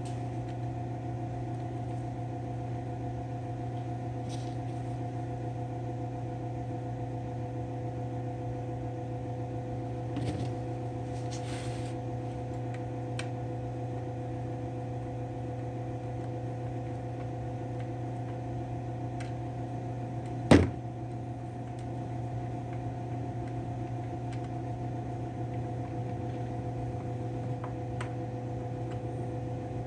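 Steady electrical hum from a running machine or appliance, with a few faint clicks and one sharp knock about twenty seconds in, the sounds of chainsaw parts being handled during reassembly.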